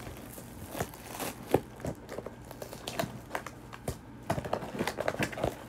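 Tissue paper rustling and crinkling as packaging is handled and unwrapped, in irregular crackles, the sharpest about one and a half seconds in.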